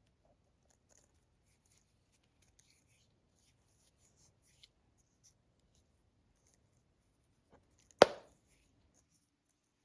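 Quiet, faint handling of a cable and braided sleeve being lined up by hand, with one sharp click about eight seconds in.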